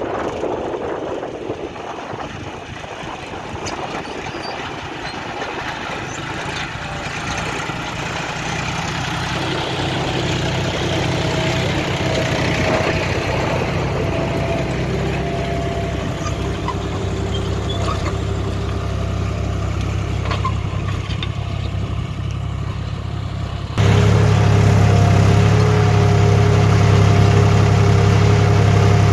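John Deere 5310 tractor's three-cylinder diesel engine running steadily under load while pulling a reversible plough through the soil. About 24 seconds in it becomes much louder and closer, heard from the driver's seat.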